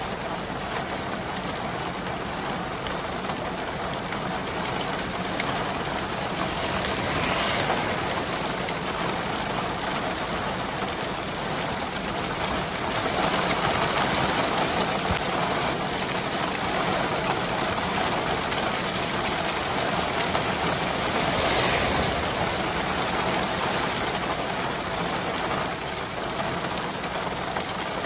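Steady rain falling, with two brief swells in loudness, about seven and twenty-one seconds in.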